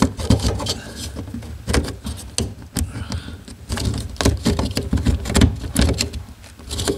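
Irregular knocking, scraping and rattling as something is worked into a hole cut in the plaster for a fire alarm fitting.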